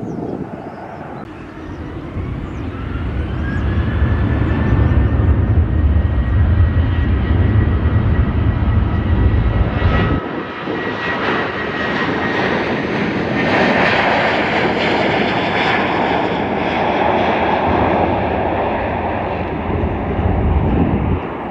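Airliner's engines passing close: a high whine rises in pitch and then holds over the first few seconds while a heavy low rumble builds. About ten seconds in the rumble drops away and a broad rushing noise takes over.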